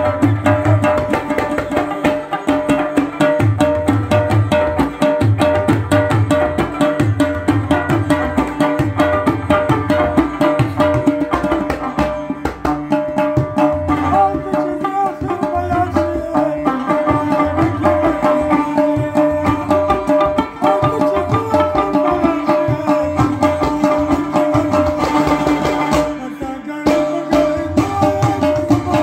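Folk music played on a clay pot drum and a harmonium: the pot gives a steady low hand-struck beat while the harmonium holds a sustained drone, with a melody wavering above it partway through.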